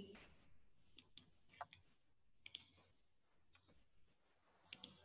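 Near silence broken by a handful of faint, short clicks from a computer mouse.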